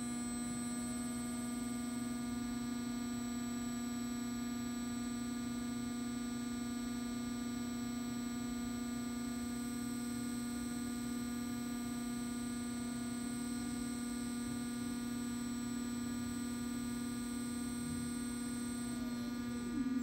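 Steady electrical hum from an electric drive system running on a test bench: several fixed tones at once, a low hum loudest and a faint high whine above it, holding one pitch.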